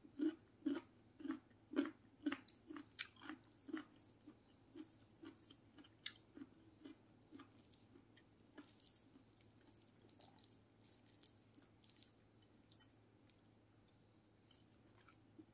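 A person chewing food close to the microphone: about two chews a second, loud at first and fading over the following seconds.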